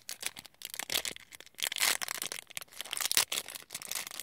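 Paper and plastic toy packaging being handled: irregular crinkling and rustling with sharp little crackles.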